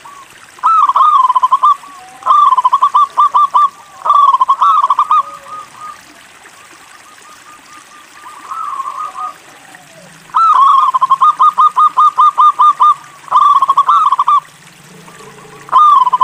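Local-strain zebra dove (perkutut) cooing: six loud phrases, each a quick rolling run of short repeated coos. The longest run comes about ten seconds in.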